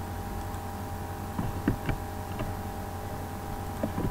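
Steady low mains-type hum and hiss from the recording microphone, with a few faint computer mouse clicks about a second and a half in and again near the end.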